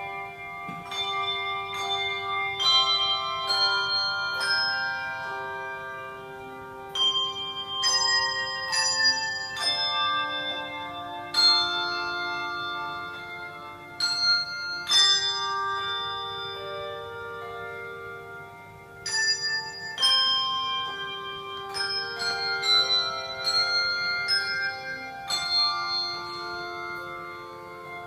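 A tune played on a set of handbells: struck bell notes that ring on and overlap into chords as the melody moves.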